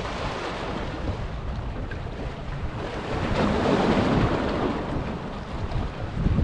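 Wind buffeting the microphone over a steady wash of sea noise, swelling louder about halfway through.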